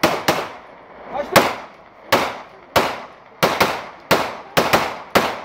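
Handguns fired into the air in celebratory volleys, shot after shot in turn: about a dozen sharp bangs at irregular spacing, some in quick pairs, each trailing off in echo.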